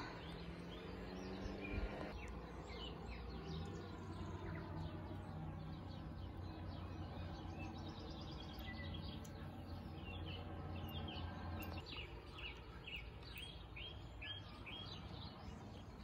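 Faint birdsong: repeated short chirps, with a quick, evenly spaced run of them in the last few seconds, over a low steady hum that drops away about three-quarters of the way through.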